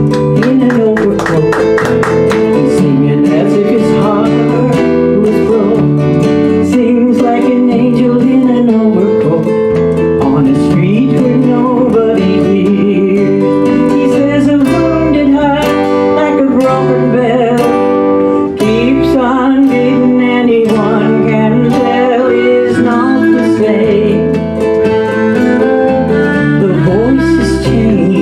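Live country-folk band playing: strummed acoustic guitar over a bass line, with violin and a woman singing the melody.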